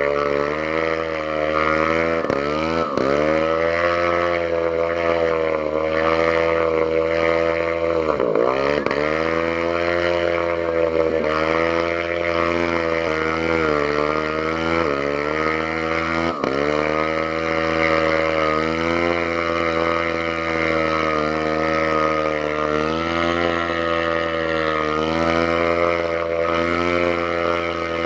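An engine running steadily, its speed sagging sharply and recovering several times, deepest about eight seconds in: it is stumbling and nearly coughing out after getting water in it.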